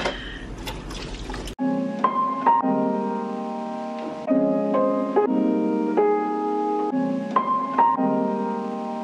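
Faint room noise with a low hum, then about a second and a half in, background music starts: gentle instrumental chords in a piano style, each note struck and left ringing.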